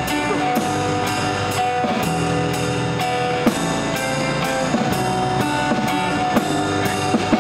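Live acoustic band playing an instrumental passage: two acoustic guitars strummed over a small drum set and cymbal keeping a steady beat of about two strikes a second.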